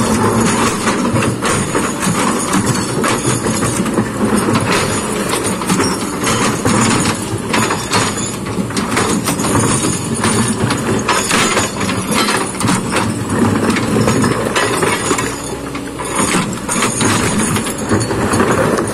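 Kobelco excavator working: its diesel engine runs steadily under load, with frequent clanks and knocks of metal, rock and soil as the machine digs.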